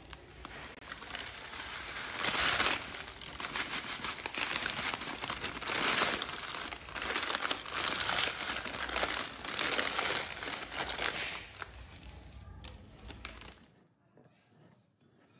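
Plastic food packet crinkling and rustling as dry roasted kunafa vermicelli is shaken out of it into a glass bowl. The crinkling comes in uneven waves and stops near the end.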